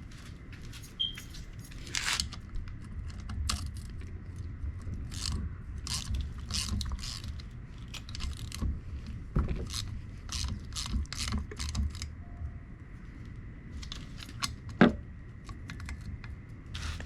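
Ratchet wrench clicking in irregular runs as 10 mm bolts holding the outboard's water pump housing are backed out, with one sharp knock near the end.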